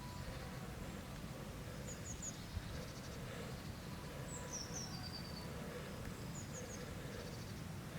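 Songbirds chirping: a quick high three-note phrase twice, with a descending run of notes between them, over a steady low background rumble.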